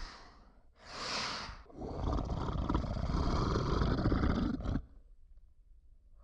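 Sound effect of a short breathy burst, then a rough, animal-like growl of about three seconds that cuts off abruptly.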